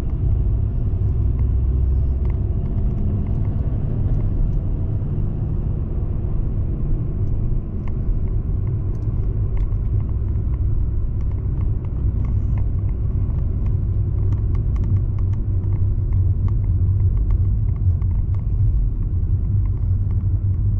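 Steady low rumble of a car's engine and tyres heard from inside the cabin while driving, with faint light clicks here and there.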